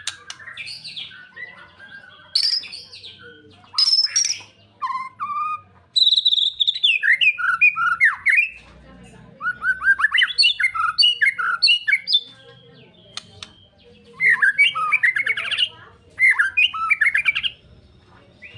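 White-rumped shama singing a varied song of clear whistles, sliding notes and fast chattering trills, delivered in several bursts with short pauses between them, the longest burst running for about six seconds in the middle.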